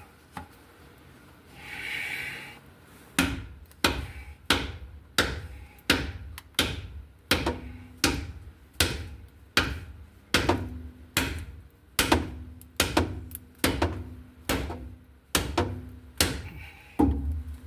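A heavy hammer pounding on a wooden protective board to drive a part down flush, with steady repeated blows about two a second, some leaving a short dull ring. The wood block is splitting under the blows.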